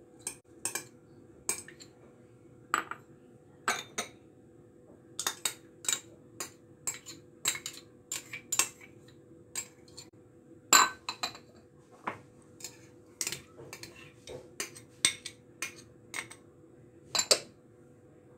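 A metal spoon clinking and tapping against a glass bowl and small dishes as spices and pastes are spooned in, in a long irregular series of sharp clinks, the loudest about eleven seconds in and near the end.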